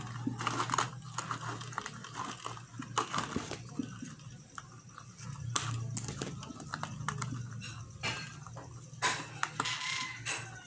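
Thin strips of cut plastic bottle being handled and bent: irregular crinkles, taps and clicks, over a steady low hum.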